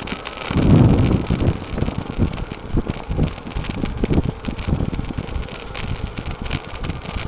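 Wind rumbling and buffeting on the microphone of a camera moving along a road, with road and traffic noise underneath; gustiest about a second in.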